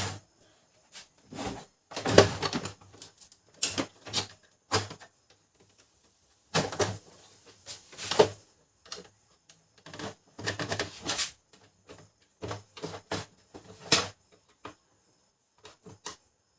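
Irregular plastic clicks, knocks and rattles as the side cover of a Brother DCP-L2540DW laser printer is worked loose and opened.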